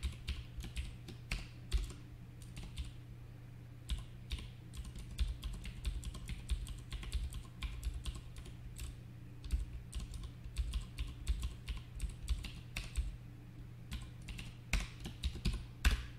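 Typing on a computer keyboard: quick, irregular keystrokes with short pauses between runs, over a steady low hum.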